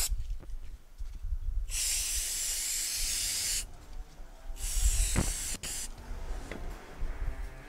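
Aerosol can of brake and clutch cleaner spraying in two bursts, one about two seconds long and a shorter one of about a second, degreasing primed metal brackets before painting.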